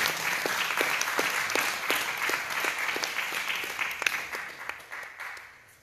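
Congregation applauding, with a steady beat of single claps a little under three a second running through it; the applause dies away near the end.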